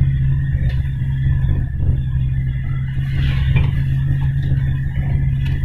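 Mahindra Scorpio's turbo-diesel engine droning steadily as heard from inside the cabin on an uphill drive, with a thin steady high tone over it. The engine is pulling normally, its boost-pressure fault (P0234) cured by a new vacuum modulator.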